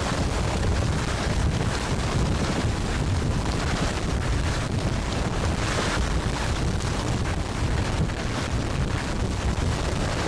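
Wind buffeting the microphone: a steady low rumble with a hiss spread above it.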